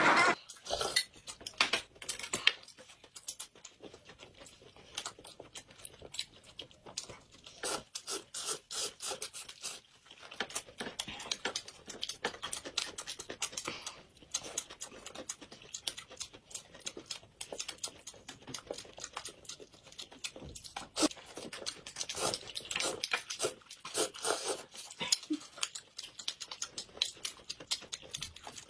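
Close-miked eating: irregular wet smacking, chewing clicks and slurps as noodles are sucked up and steamed buns are bitten, with busier spells of crackling chewing now and then.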